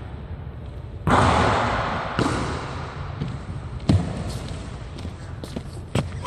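A basketball hits the basket about a second in, with a ringing echo that dies away, then thuds a few more times on a hardwood gym floor.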